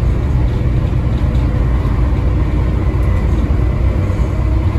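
Volvo D7C 7.3-litre six-cylinder diesel of a Volvo B7TL double-decker bus running steadily under way, heard from inside the passenger saloon as a loud, even low rumble.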